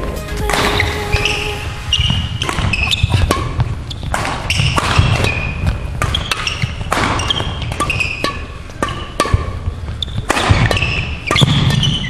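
Badminton rackets striking shuttlecocks in quick, irregular cracks from several courts at once, mixed with short high squeaks of court shoes on the hall floor and thuds of footwork.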